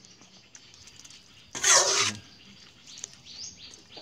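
A perforated skimmer ladle sloshing through a metal pot of hot water where catfish pieces are blanching, with one short, loud, splashy rush about one and a half seconds in. Faint bird chirps sound in the background.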